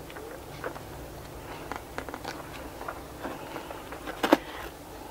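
Paper and cardboard packaging being handled and pulled open: scattered crackles and rustles, with one sharp knock about four seconds in.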